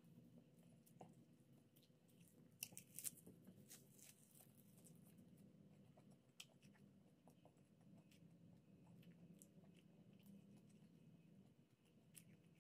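Faint chewing of raw leafy greens, with a short cluster of crisp crunches about two and a half to three seconds in, over a low steady hum.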